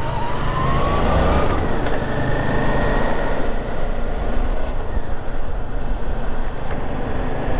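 Suzuki V-Strom 650 motorcycle's V-twin engine running under way, with a tone rising in pitch over the first second and a half, over steady wind and road noise.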